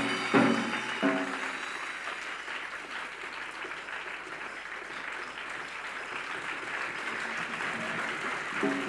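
Audience applauding steadily, many hands clapping together. A pitched, musical sound stops about a second in, and another comes back near the end.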